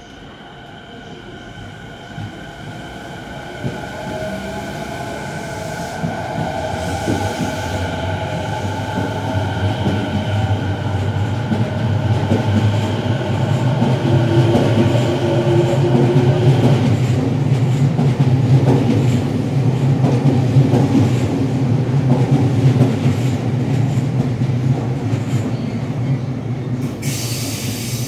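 Rinkai Line 70-000 series electric train pulling out and accelerating: the motor whine rises in pitch while the rumble of wheels on rail grows steadily louder as the cars pass. A sudden steady hiss comes in near the end.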